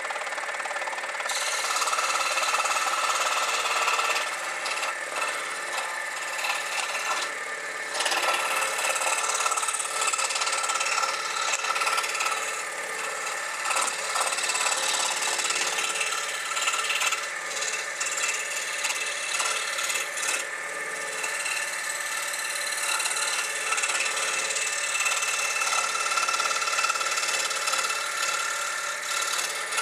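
Scroll saw running with its fine blade cutting through a thin wooden puzzle blank: a steady machine hum under the hiss of the blade sawing wood. The cutting noise comes in about a second in and dips briefly several times as the piece is fed along the line.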